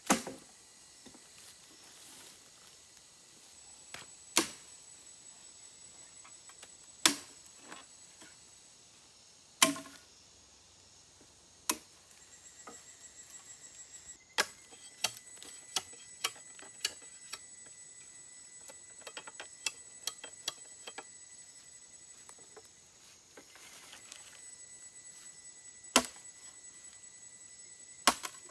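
Machete blade striking bamboo in sharp, single knocks a few seconds apart, among smaller clicks and rustling of dry leaf litter underfoot. A faint steady high tone runs under the second half.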